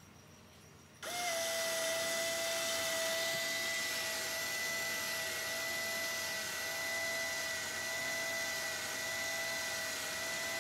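Red Sea ReefBot's syringe stepper motor starting abruptly about a second in and then running with a steady, even whine, driving the syringe plunger to draw the water sample from the vial.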